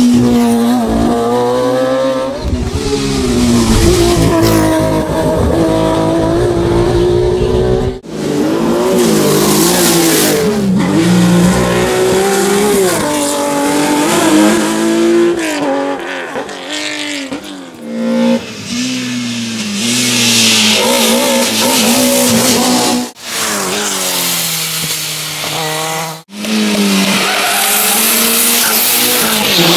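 Historic rally cars driven hard on a special stage, engines revving up and falling back again and again through gear changes. Several separate clips are cut together, so the sound breaks off abruptly three times.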